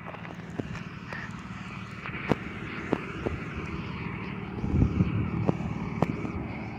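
A vehicle engine running steadily, growing louder about five seconds in, with scattered sharp clicks.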